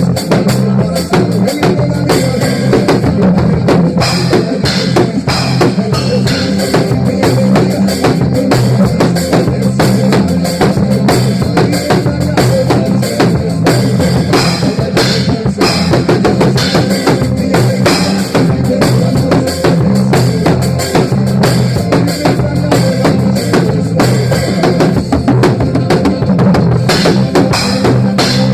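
Drum kit played live along with a loud recorded song, with fast, steady kick and snare hits over a heavy bass line.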